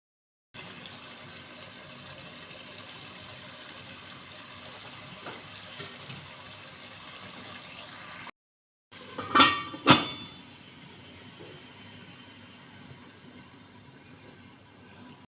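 Steady hiss of food cooking in a pot, then two sharp, ringing clinks of a utensil against the cookware about two thirds of the way through.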